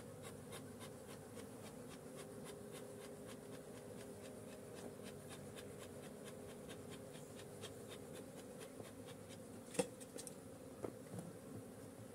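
Honeybees buzzing around open hive boxes, a steady low hum. Through most of it a rapid run of faint ticks, with a single sharp click about ten seconds in and a couple of lighter knocks after.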